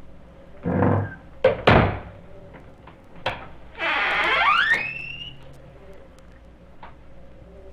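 Halloween sound-effects record: a short rough scraping burst, then two sharp thuds a fraction of a second apart and a click. About four seconds in comes a squeal that rises in pitch for about a second. A faint steady hum runs underneath.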